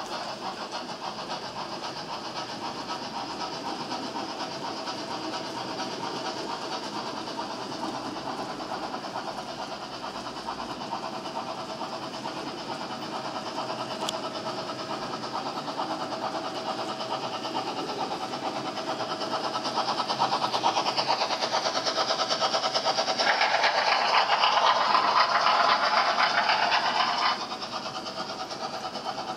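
HO-scale model trains running: steam locomotive models and strings of tank wagons rolling over the track with motor and wheel noise and a fast, even rhythm. It grows louder in the last third and drops off suddenly a couple of seconds before the end.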